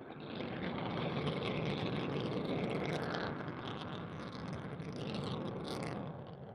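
Eurofighter Typhoon's twin EJ200 turbofan engines running at full power with afterburner on its takeoff roll: a steady rushing noise that swells about half a second in and dies down near the end.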